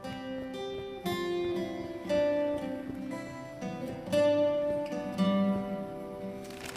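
Acoustic guitar music: plucked notes ringing on, with some strumming.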